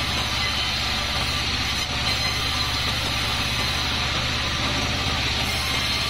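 Large sawmill bandsaw running steadily, its blade sawing kapok (randu) wood slabs into thin boards: a low even hum under a continuous hiss.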